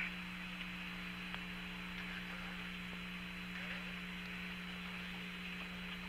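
Steady hiss with a low hum on the Apollo 14 air-to-ground radio link, an open channel between transmissions.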